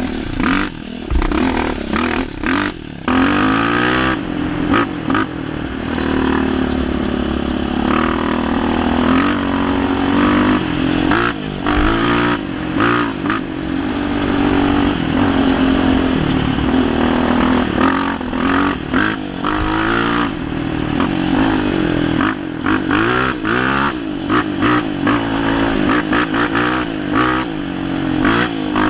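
Yamaha Raptor 700 quad's single-cylinder four-stroke engine under way, its note rising and falling as the throttle is worked, with frequent short dips where the throttle is let off.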